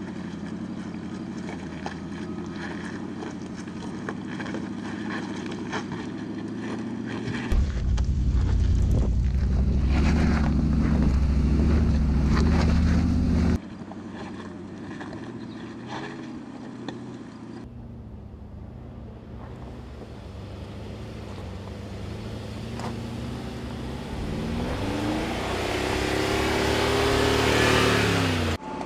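Mercedes-Benz G-Class SUV engine running under load as it climbs a steep rocky slope, heard across several edited clips, with a loud deep rumble from about a third of the way in that cuts off abruptly. Near the end the sound builds and the engine pitch glides as the SUV drives close past on gravel.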